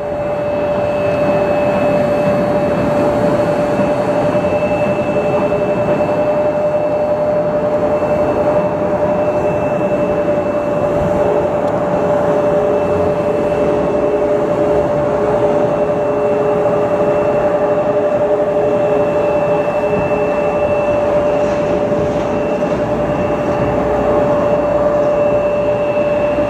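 Steady, loud machine running noise with a constant hum at a few fixed pitches. It sets in at the start and holds without rising or falling.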